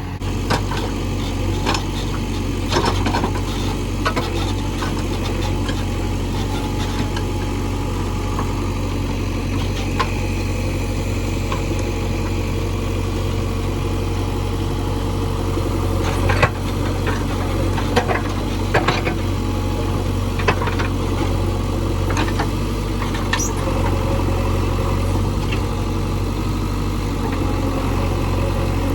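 JCB 3DX backhoe loader's four-cylinder diesel engine running steadily while digging, with scattered metallic clanks and knocks from the bucket and boom. A cluster of the loudest knocks comes a little past halfway.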